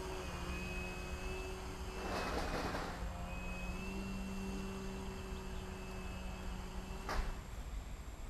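Steady motor hum of an RC model aircraft, holding one pitch. A short rush of noise comes about two seconds in, and a sharp click comes near the end.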